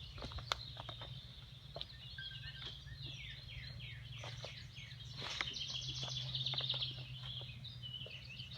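Songbirds singing: repeated falling whistled notes, and a fast trill about midway that is the loudest part, over scattered snaps and crunches of footsteps in tree debris.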